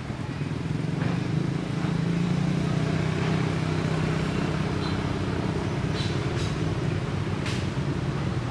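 Steady low engine rumble of a motor vehicle running, with a few brief sharp clicks about two-thirds of the way in.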